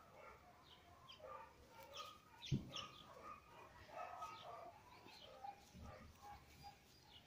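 Faint bird chirps scattered through the quiet, with a single low thump about two and a half seconds in.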